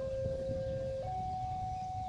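Two-tone hi-lo siren, holding a low note and then stepping up to a higher note about a second in, over a low rumble.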